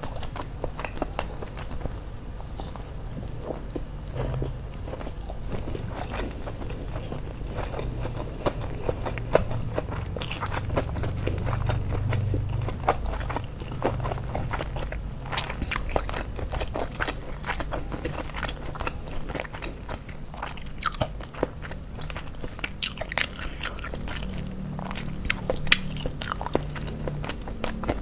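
A person chewing and biting crispy fried chicken and rice, with irregular crunches and small wet mouth clicks.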